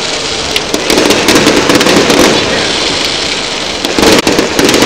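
Aerial fireworks shells bursting and crackling in rapid, dense succession, with a loud cluster of bangs about four seconds in.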